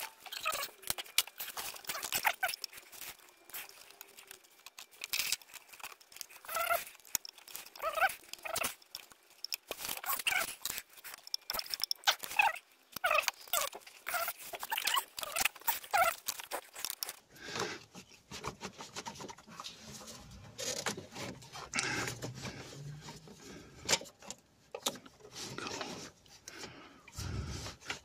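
Gloved hands working in a cramped engine bay, rubbing and squeaking against rubber hoses, with irregular clicks and light knocks of parts and tools.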